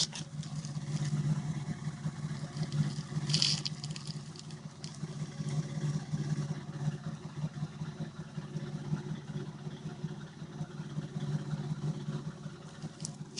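Dodge Intrepid V6 engine running warm, with the rattle and knock that the owner puts down to the timing chain. A brief hiss comes about three seconds in.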